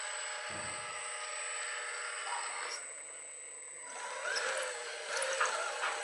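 Hydraulic pump of a 1:14 RC model excavator whining as it runs the boom and swing, dropping back for about a second midway, then louder with its pitch wavering as the loaded bucket is slewed.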